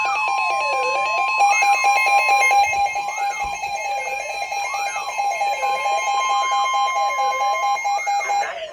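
Emergency alert tones for a tornado warning: loud steady alert tones layered with a siren-like tone sweeping up and down about every one and a half seconds. The steady tones cut off near the end while the sweeping tone goes on.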